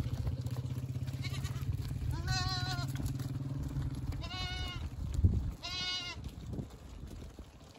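Three wavering goat bleats, each about half a second long, over the steady low running of a motorcycle engine that fades out partway through. A single thump just before the last bleat is the loudest sound.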